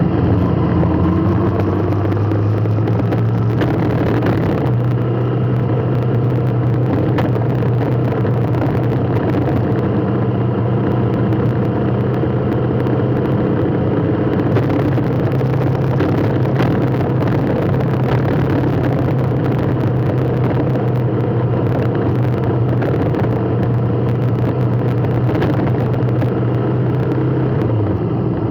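A vehicle engine running steadily in traffic, its pitch rising a little in the first few seconds and dropping near the end.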